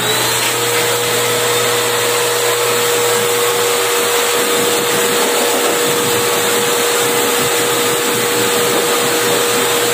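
A 2200 W pet dryer blower runs steadily, forcing a strong rush of air through its hose, with a steady motor whine.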